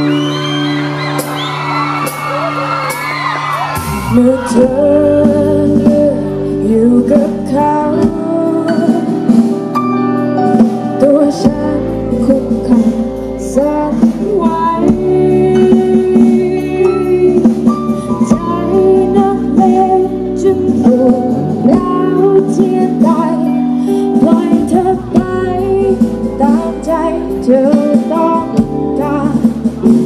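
Live band playing a song with a woman singing lead: electric guitar chords, bass and drums under her voice. The bass and drums come in about four seconds in, after which the beat runs steadily.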